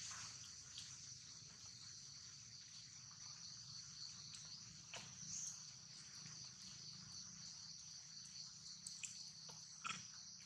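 Faint, steady, high-pitched insect chorus, with a few soft clicks about halfway through and again near the end.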